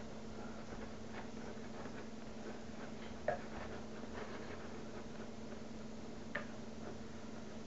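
A low steady hum with a few faint, short clicks and taps, two of them a little louder.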